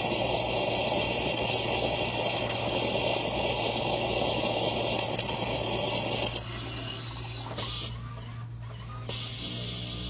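Miele built-in coffee machine running through a brew cycle: a loud mechanical rattling whir over a steady hum that drops away about six seconds in, leaving a quieter hum.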